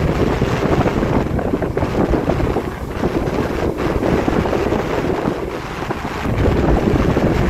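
Strong wind buffeting the microphone in a dense, gusting low rumble, with ocean surf breaking behind it.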